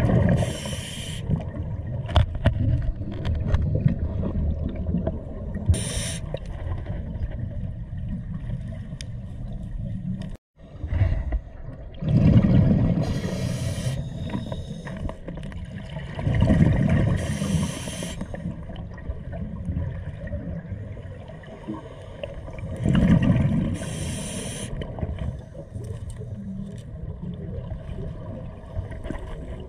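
Scuba diver breathing through a regulator underwater: a short hiss on each inhalation and a bubbling rumble of exhaled air, every five to six seconds, over a steady low underwater rumble.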